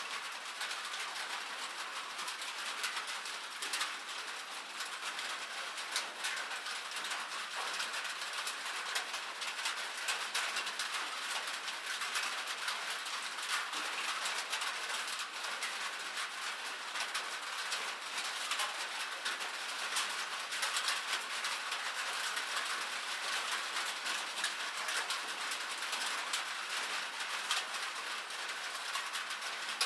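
Light rain falling steadily: a soft, even hiss of rain with many small, irregular drop ticks pattering on a surface.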